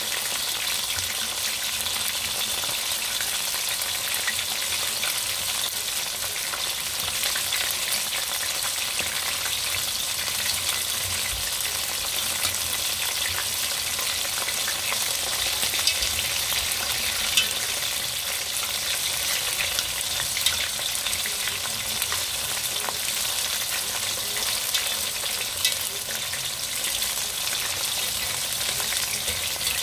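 Chicken wings deep-frying in hot oil, a steady sizzle with fine crackling throughout and a few sharper ticks. This is the second fry, which the cook does to make the wings crispy.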